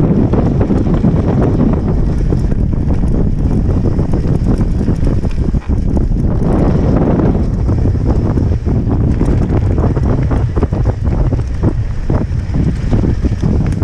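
Mountain bike riding fast down a rough dirt trail, with heavy wind buffeting on the microphone and a steady stream of rattles and knocks from the bike over the ground.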